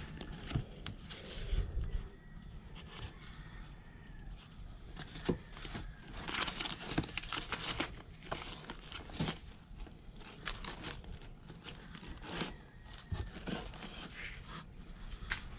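Paper and cardboard rustling as a hand flips through books, magazines and papers standing upright in cardboard boxes, with scattered light taps and knocks.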